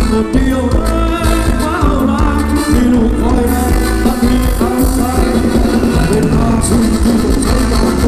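Live band playing upbeat Thai ramwong dance music, with a singer over a steady driving beat.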